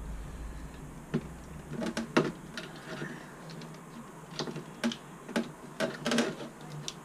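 Irregular light clicks and taps of plastic wiring connectors and cables being handled, with a small cluster near the end.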